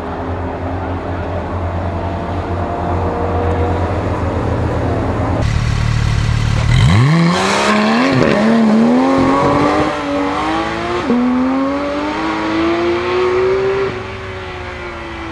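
A Porsche sports car's engine and exhaust running at low revs, then about seven seconds in it pulls away hard, the pitch climbing fast with brief dips at the gear changes. Near the end it backs off, and the note falls away.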